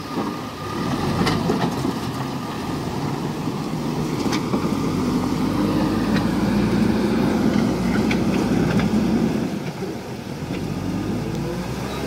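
JCB backhoe loader's diesel engine running under load as the machine pushes through flowing floodwater. It is louder through the middle, with a few sharp knocks.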